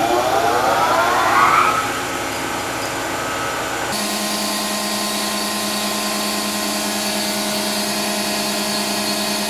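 Hydraulic test stand running a variable-displacement hydraulic piston pump: a whine rising in pitch over the first two seconds, then a steady mechanical hum with a low drone.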